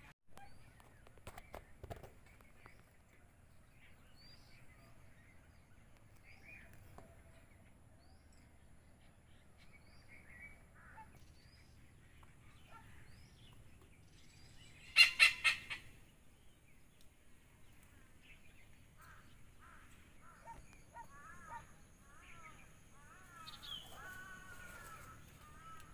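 Birds calling: faint scattered chirps, then a loud short burst of rapidly repeated calls about halfway through, and a run of short repeated calls near the end.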